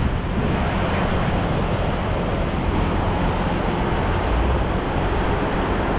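Steady outdoor noise of wind rumbling on the microphone over the wash of surf.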